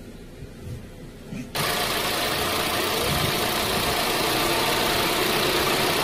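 Holden Trax's Ecotec four-cylinder petrol engine running at a steady idle, heard close up in the open engine bay with its new coil pack fitted. The engine sound starts abruptly about a second and a half in.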